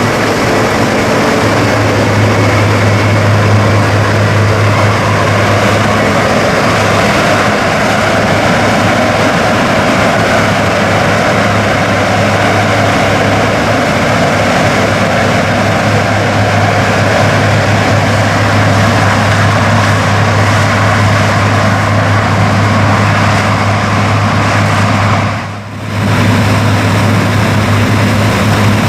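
New Holland CR 7.80 combine harvester running steadily while harvesting corn: a loud, even machine rush over a steady low hum. The sound briefly drops away about 25 seconds in, then returns.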